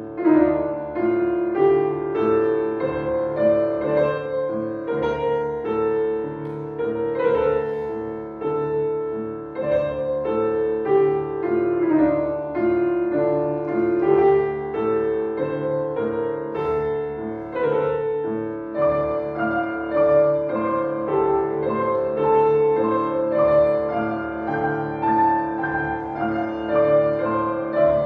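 Piano playing, a melody of changing notes over held tones that continues without a break.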